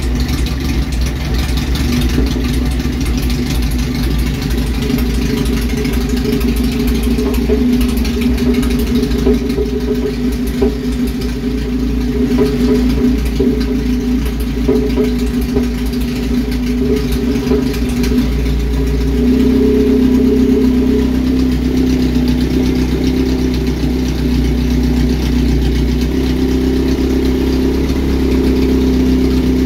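Ford ST170 2.0-litre four-cylinder engine idling at about 800 to 1,000 rpm. It breathes through Kawasaki ZX9R motorcycle carburettors and exhausts through the bare manifold with no exhaust system, so it sounds very raw. About two-thirds of the way through, the note shifts and runs steadier and slightly louder.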